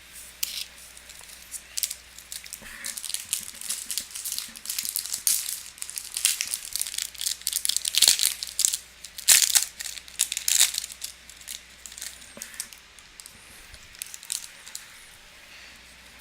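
A foil trading-card pack of Topps Chrome baseball being torn and crinkled open by hand, a run of quick crackles that is busiest in the middle.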